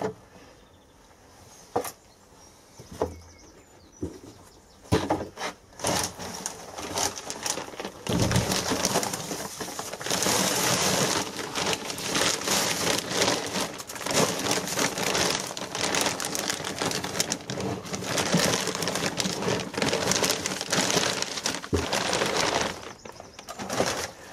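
Compost pouring out of plastic sacks into a potting tray, a continuous loud rushing hiss with the crinkle of the bags, starting about eight seconds in and stopping shortly before the end. Before that there are only scattered rustles and knocks from handling plastic bags.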